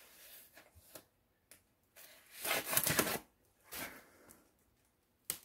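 Hands handling a cardboard box on a table: faint rustling and rubbing on cardboard, with a louder scraping stretch about two and a half seconds in and a brief one near four seconds.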